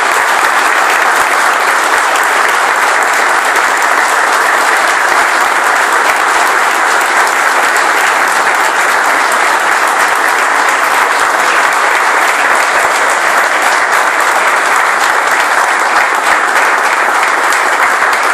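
A roomful of people applauding steadily and loudly: a minute of applause held in place of a minute of silence, in memory of someone who has died.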